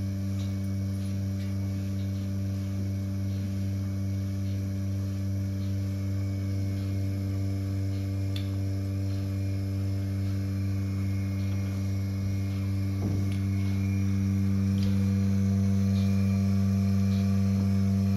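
Bucket milking machine running: a steady electric hum from the vacuum system, with the pulsator ticking faintly about once a second. A single knock about 13 seconds in, after which the hum is a little louder.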